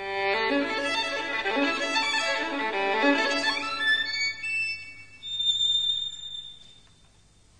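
Violin playing a short phrase of several notes that starts abruptly, then dies away into a faint high held note near the end.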